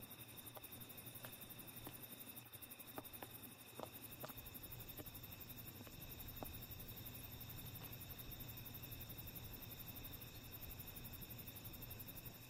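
Faint night ambience: insects trilling steadily in a high pitch, with a few soft clicks about three to four seconds in.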